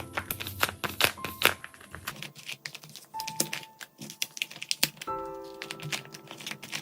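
Quick, irregular clicks and taps from handling a blind box's plastic and cardboard packaging, over background music with held notes.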